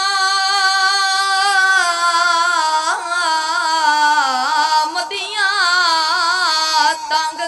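A boy's voice singing one long, drawn-out high note into a microphone, held level at first and then wavering in ornamental turns and stepping lower, breaking off near the end. It is the sung, lamenting part of a zakir's majlis recitation.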